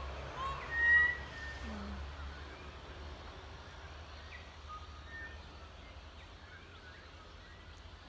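Birds calling at dawn: a few short whistled chirps, the loudest about a second in, then scattered faint chirps over a low background rumble that fades after the first few seconds.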